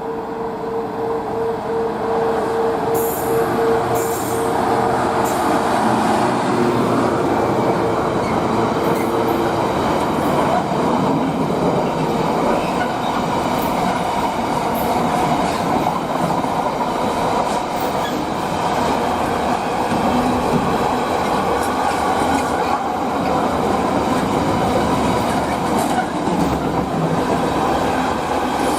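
Freight train passing at speed: a steady, loud rumble and rattle of wagons over the rails, growing louder in the first few seconds. A single high, pulsing tone sounds over it for about the first third.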